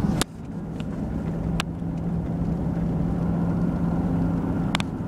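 Steady road and engine noise inside a car moving at highway speed, with a low steady hum. The level drops suddenly about a quarter second in, and there are a few short clicks.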